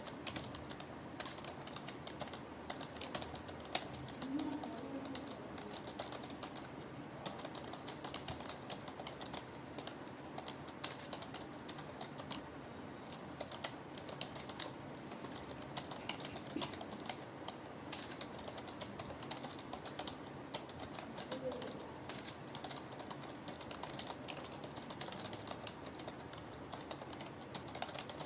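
Continuous typing on a computer keyboard, a steady run of quick key clicks with a few louder strikes.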